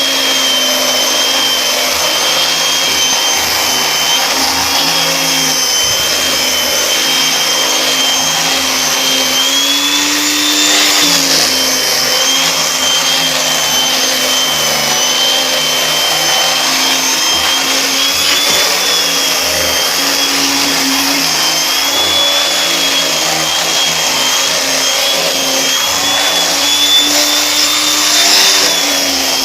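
Vacuum cleaner running steadily, its motor whine wavering slightly in pitch and rising briefly about ten seconds in and again near the end.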